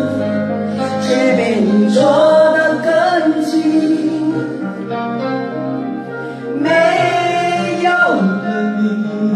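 A song with a sung vocal over a backing track, played as workout music. The voice holds long notes that waver and slide, with a falling slide near the end.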